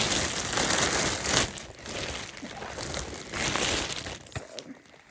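Plastic wrapping crinkling and rustling as it is handled in uneven bursts, dying down to a few faint clicks near the end.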